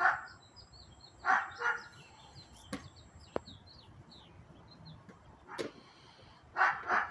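Small birds chirping in quick runs of short high notes, with several louder short bursts of noise and two sharp knocks from a puppy mouthing and pushing a plastic pot around; the bursts bunch up near the end.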